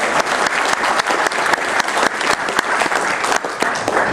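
Audience applauding, a dense round of clapping that dies away near the end.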